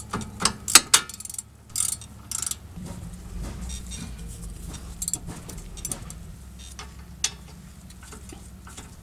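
Long-handled ratchet clicking and the socket clinking on a 14 mm brake caliper slide pin bolt as it is loosened: sharp clicks in the first second, a few short scrapes around two seconds in, then scattered faint ticks over a low steady hum.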